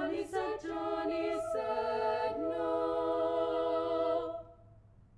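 Treble (female) a cappella ensemble singing the song's closing phrase in short, clipped syllables, then holding a final chord that is released about four seconds in.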